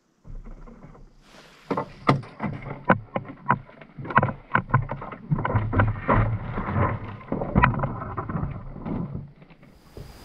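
Canoe sounds: an irregular string of sharp knocks against the hull, several a second, with water noise beneath, starting about a second and a half in and stopping just before the end.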